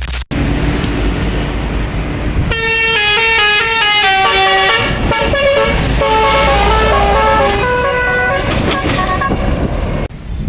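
Bus telolet horn, a Basuri multi-tone horn, playing a quick melody of stepped notes for about five seconds over the bus's running engine.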